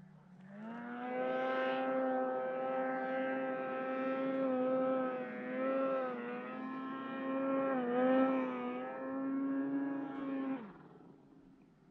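Snowmobile engine revving up and running at high revs under throttle, with brief dips in pitch twice as the throttle eases and comes back, then dropping off as the throttle is released near the end.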